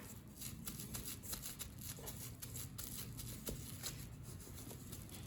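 Faint rustling and light tapping from hands handling painting materials, with a few slightly firmer taps about two, three and a half, and nearly five seconds in.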